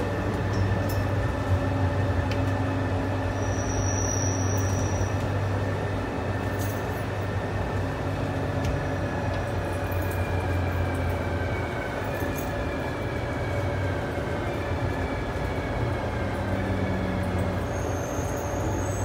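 New Taipei Metro Circular Line train running on its elevated track and slowing into a station: a steady rumble of wheels on rail under a low hum, with a faint motor whine that slowly falls in pitch as the train brakes.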